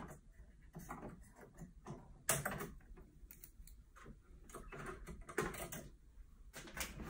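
Scattered light clicks and plastic taps as a knife cuts the shipping zip ties holding a 3D printer's extruder. A sharper click comes about two seconds in and another about five seconds in.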